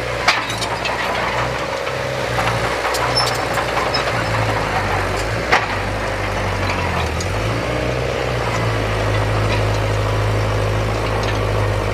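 Heavy earthmoving machinery engine running steadily, with a faint wavering whine over it and a couple of sharp knocks, one just after the start and one about five and a half seconds in.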